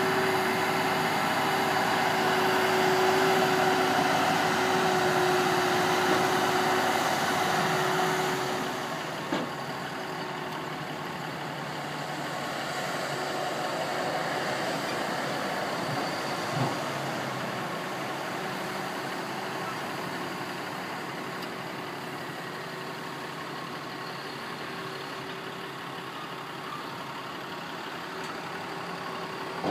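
Massey Ferguson 7624 tractor's six-cylinder diesel engine running steadily while the silage wagon's box is raised for tipping. The engine sound drops noticeably about eight seconds in, and two faint knocks follow later.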